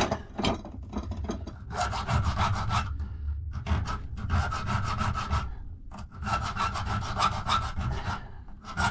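Hand file rasping across a key blank clamped in a vice, in quick back-and-forth strokes that come in three or four runs of about one to two seconds, with short pauses between.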